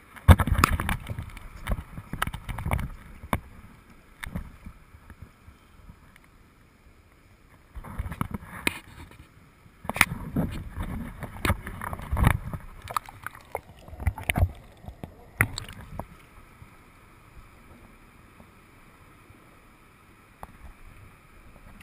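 Handling noise on an action camera: irregular sharp knocks and low rumbling bumps in two spells, the first at the start and the second from about eight seconds in to about sixteen, with quiet stretches between and after.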